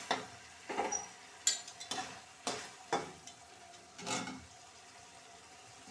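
A perforated steel spoon stirring a thick pointed gourd and chana dal curry in a metal kadhai: a run of scrapes and clinks against the pan, about two a second, that stops about four seconds in.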